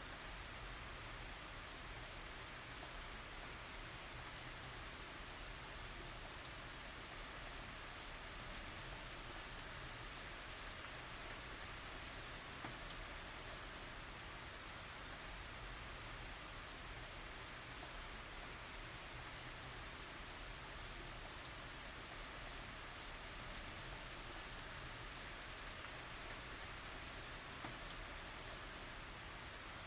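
Steady tropical rain falling, a constant hiss with fine drop patter and no thunder.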